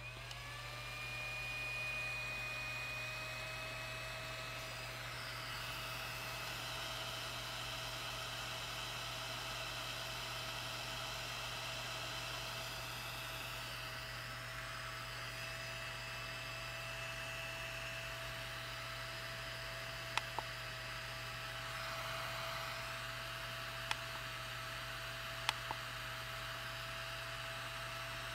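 Cooling fan of a Deess IPL hair-removal handset spinning up as the device switches on, its whine rising for about a second and then running steadily with a hiss of moving air. A few short, sharp clicks come about two-thirds of the way through.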